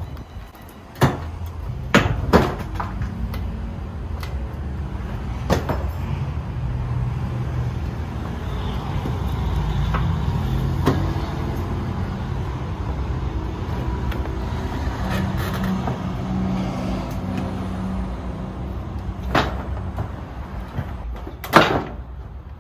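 Sharp plastic clicks and knocks of a car's front bumper cover being worked loose from its tabs and clips by hand. A handful of snaps are spread out over a steady low rumble, with the loudest near the end.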